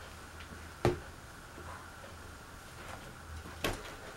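Two sharp knocks, about a second in and near the end, as ceiling fan blade parts are handled and fitted together, over a steady low hum.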